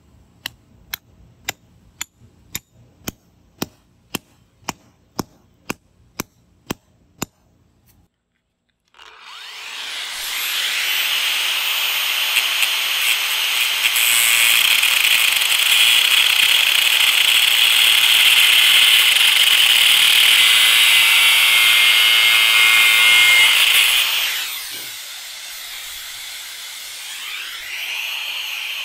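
Hammer striking a steel wedge anchor stud into its hole in concrete, a steady run of metallic blows about two and a half a second for some seven seconds. Then a Festool AGC 18 cordless angle grinder spins up and cuts through the steel threaded anchor stud with a loud, steady high whine, winds down, and starts again near the end.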